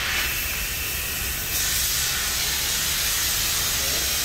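A steady hiss that gets louder about a second and a half in.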